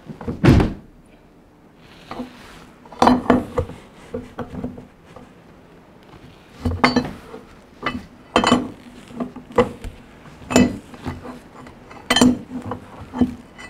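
Irregular sharp metallic clinks and knocks, about ten, the louder ones ringing briefly: a wrench working the nut of a screw settling jack atop a log post. The jack is being slackened so the heavy roof settles a couple of millimetres at a time, with a crackle.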